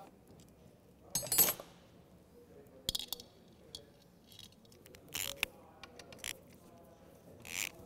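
Hand tools and small metal parts handled while a cover is taken off a moped: a loud metallic scrape and clink about a second in, then scattered clicks and short rattles.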